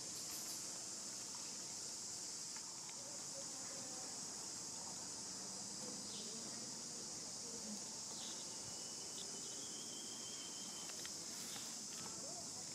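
Steady, unbroken high-pitched chorus of insects, with a few faint short calls scattered over it.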